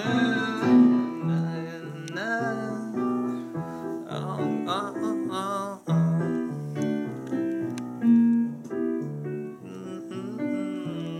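Background music: a piano-led song with a steady rhythm of chords, with a few sung notes near the start.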